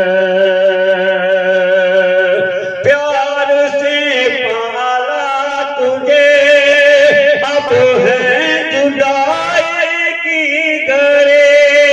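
A man singing an Urdu nazm in long held, wavering notes, with no clear words.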